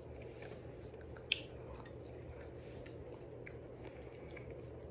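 Faint chewing and biting of fresh fruit, with scattered small mouth clicks and one sharper click just over a second in.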